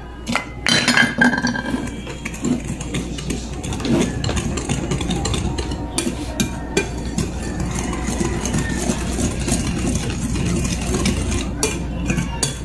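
Wire whisk stirring dry rice flour mixture in a glass bowl, its wires scraping through the powder and clinking against the glass without a break, with a few sharper clinks near the start.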